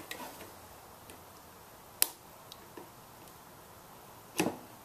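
Sharp clicks, one at the start and one about two seconds in, then a short knock near the end. They come from a worn, cracked rubber tire being cut and pried off a bandsaw's metal lower wheel by hand.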